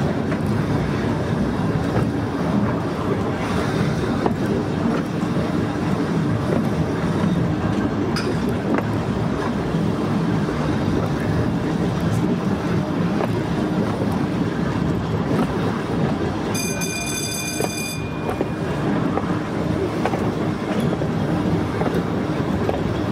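Volk's Electric Railway car running along its track: a steady rumble and clatter of wheels on rail. About two-thirds of the way in, a high-pitched warning signal sounds for about a second and a half, as the car nears a foot crossing.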